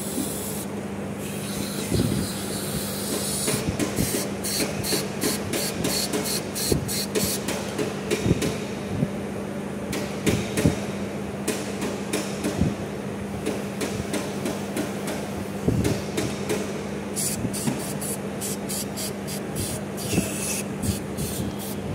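Aerosol throttle body cleaner sprayed in many short hissing bursts onto a dirty throttle body, with knocks and clicks as the part is handled, over a steady low hum.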